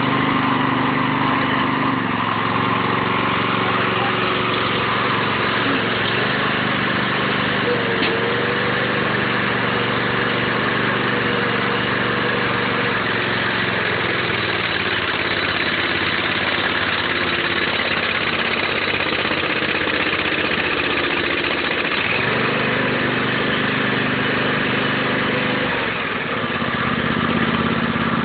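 Small engine of a homemade hydraulic log splitter running steadily, driving the hydraulic pump as the ram forces through a large log. Its note shifts a few times as the splitting load changes.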